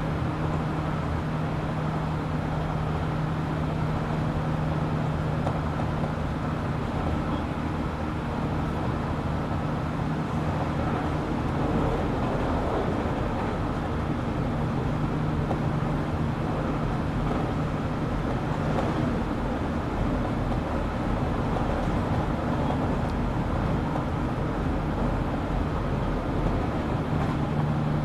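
Interior running noise of a JR Kyushu 817 series electric train between stations: a steady rumble of wheels on rail with a low, even hum, holding at a constant pace.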